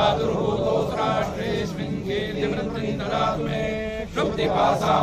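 A group of devotees, led by men's voices, chanting devotional verses to the goddess Lakshmi together in a sung, melodic recitation, with a short breath pause about four seconds in.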